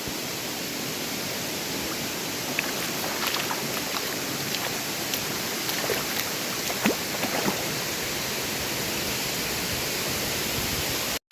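Waterfall: water falling and rushing steadily, with a few brief splashes about three to seven seconds in.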